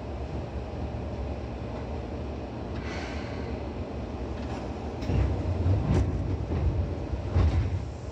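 Seibu 2000 series electric train running, heard inside the car above the underfloor line breaker: a steady low rumble of wheels and running gear. From about five seconds in it grows louder for a couple of seconds, with several heavy thumps.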